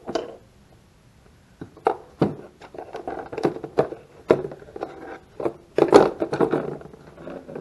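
Hands rummaging through small carburetor parts in a plastic parts tray: small pieces clicking, rattling and scraping. About a second and a half of quiet comes first, then irregular clicks, loudest around six seconds in.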